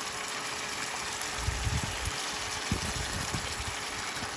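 Tilapia stew bubbling hard in a pot on an induction stove: irregular low bubble pops over a steady hiss. The heat is too high for slow cooking.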